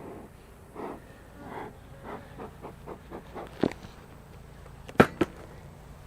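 Soft breathy puffs, a few slow ones and then a quicker run of about four a second, followed by three sharp cracks, the last two close together and loudest.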